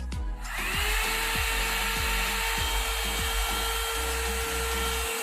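One-step hair dryer and styler (hot-air brush) switched on about half a second in: its small motor whines up to speed, then runs steadily with a rush of air. Background music plays underneath and drops out near the end.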